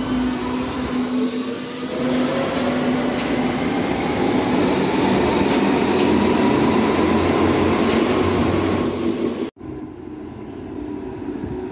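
Berlin U-Bahn large-profile train pulling out of the station, its electric traction drive whining in rising tones as it speeds up over growing wheel-on-rail noise. The sound breaks off suddenly near the end, leaving a quieter, steady hum.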